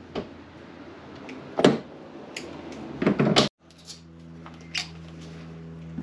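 Sharp clicks and clacks of a hand-held wire crimper being worked on wiring, with the loudest snap about a second and a half in and a quick cluster of snaps around three seconds in. A steady low hum runs underneath.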